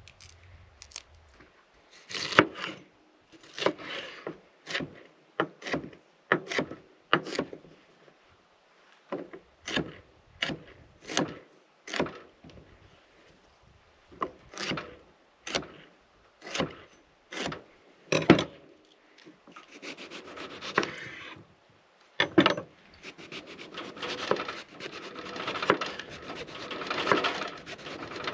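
Wood being sawn by hand: a run of separate rasping strokes, about one and a half a second, that gives way to quicker, steadier scratching near the end.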